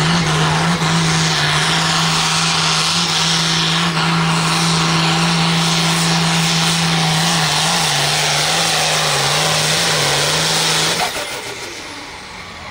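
Pro field pulling tractor's diesel engine held at full throttle while it drags the weight sled, a loud, steady drone that wavers slightly partway through. About eleven seconds in, the engine comes off full power and the sound drops away as the pull ends.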